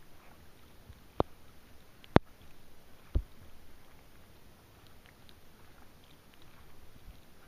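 Kayak being paddled: three sharp knocks about a second apart in the first few seconds, the last one deeper, then only faint water hiss with a few light ticks.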